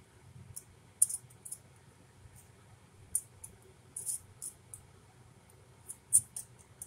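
Metal mason-jar lids clicking sharply under fingertips as a hand presses and handles them: a few scattered clicks in small clusters, the loudest about a second in and near the end.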